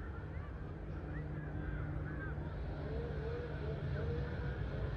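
Low, steady rumble of a jet airliner passing above the cloud, growing a little louder. Faint bird calls chirp over it.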